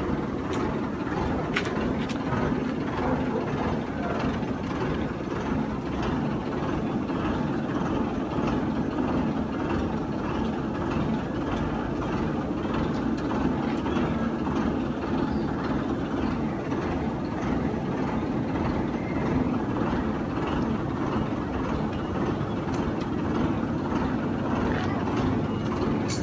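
Steady low rumbling background noise, even throughout, with a couple of faint clicks in the first two seconds.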